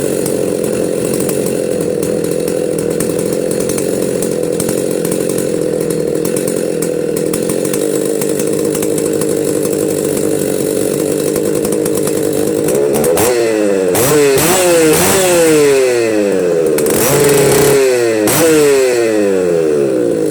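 Husqvarna 61 two-stroke chainsaw running at a steady speed, then revved up and down repeatedly in quick throttle blips from about two-thirds of the way in. Freshly brought back to running after a reseated carburettor diaphragm, it runs but still needs its carburettor adjusted.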